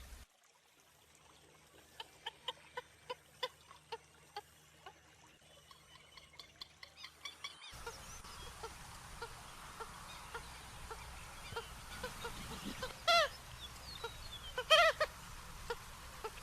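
American purple gallinule calling: a steady series of short clucking notes, about two a second, then two louder, harsher calls near the end.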